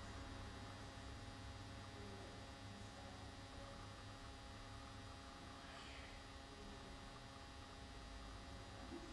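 Quiet, steady electrical mains hum with faint hiss: the room tone of a still, empty room.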